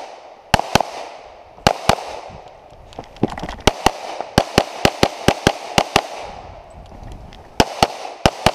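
STI .38 Super open-division pistol with compensator firing rapid shots, mostly in quick pairs about a fifth of a second apart. A fast string of shots runs from about three and a half to six seconds in, there is a short pause, and the shots start again near the end.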